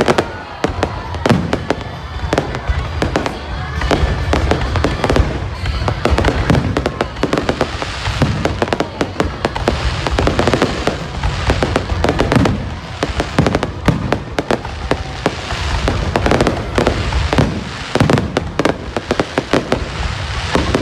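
Fireworks going off in a dense, unbroken run of bangs and crackles.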